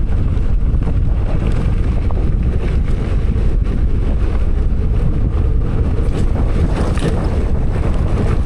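Wind buffeting the microphone of a moving bicycle, a steady loud low rumble.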